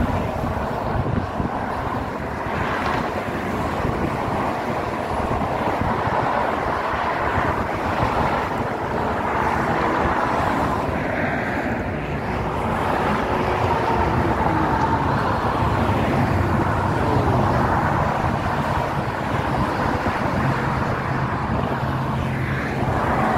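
Road traffic, cars passing and running in a steady stream, with wind rumbling on the microphone.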